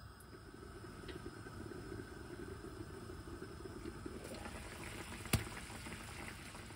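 Sauce bubbling and sizzling in a frying pan under a glass lid over a gas flame. A little past five seconds the glass lid gives one sharp clink as it is lifted off the pan.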